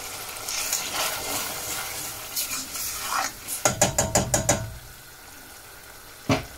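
Metal spoon stirring onions and tomatoes in a stainless steel saucepan just after water has been added, with a light sizzle underneath. About halfway through, the spoon strikes the pan in a quick run of sharp clicks, and it clicks once more near the end.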